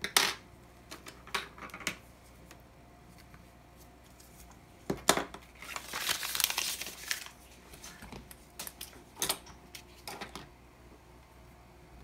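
Objects being handled on a workbench: a scattering of sharp clicks and knocks, with a crinkling, rustling stretch of about two seconds around the middle.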